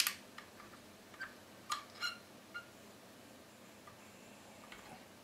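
Scattered light clicks and small metallic ticks from handling a soldering gun at a fresh solder joint on a chassis connector held in a vise, one of them with a brief ring about two seconds in.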